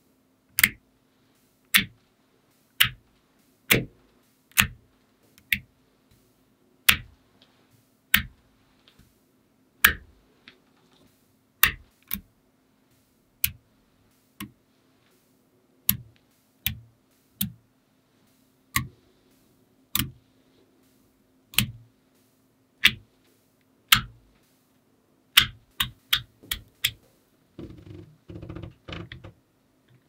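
Small magnetic balls snapping together one at a time, sharp single clicks at irregular intervals of about a second, over a faint steady hum. Near the end there is a short rattle of balls against each other.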